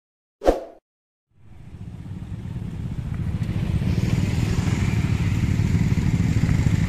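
A short, sharp click-like sound effect about half a second in, then street sound fades in: a motorcycle engine running as it rides past, a low rumble that grows louder over the next few seconds, with traffic noise around it.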